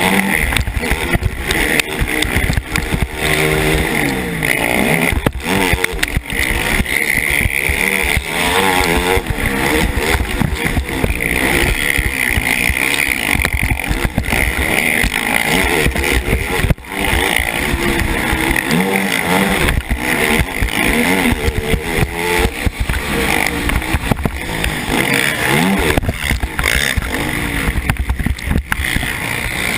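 KTM 450 SX quad's single-cylinder four-stroke engine revving hard and falling off again and again as it is ridden round a motocross track, with wind noise on a helmet-mounted microphone. Occasional sharp knocks come through as well.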